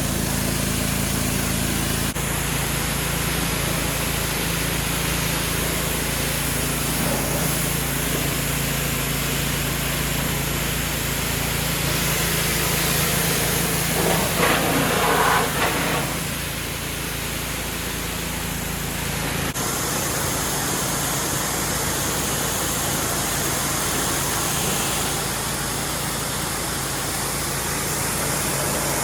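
An engine running steadily, with a brief louder rushing noise about halfway through.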